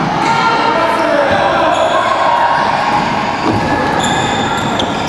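Basketball game in an echoing gym: a basketball bouncing on the hardwood court, with children's and adults' voices calling out over one another.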